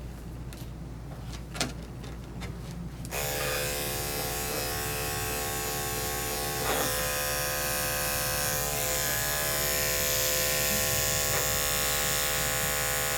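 Electric dog grooming clippers switch on about three seconds in and then run with a steady buzz. Before that there are a few light clicks.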